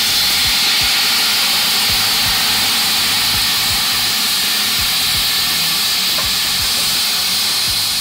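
White wine poured into a kamado grill's hot drip tray of vegetables, hitting the hot metal with a loud, steady hiss and sizzle as it turns to steam.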